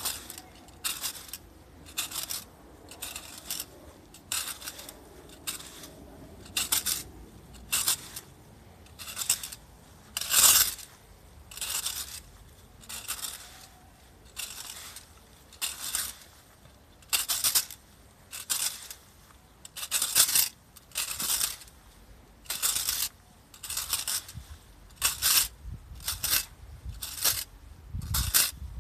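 Metal fan rake's wire tines scraping through cut grass and weeds on the ground, one raking stroke about every second. A low thump comes near the end.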